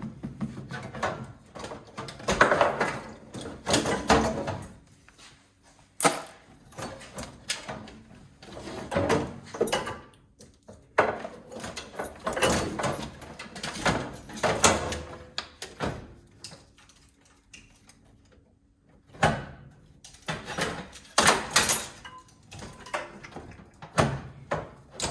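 Hand dismantling of a gas instant water heater: irregular clicks, knocks and scrapes as screws are worked and metal parts, including a cast-aluminium water-valve assembly, are pulled loose and handled.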